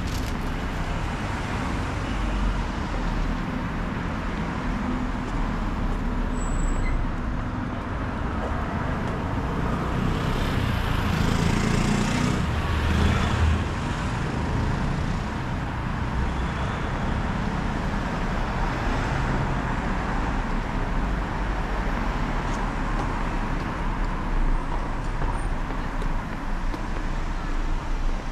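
Street traffic noise, a steady rumble of road vehicles, with one vehicle passing close and swelling louder about ten to fourteen seconds in.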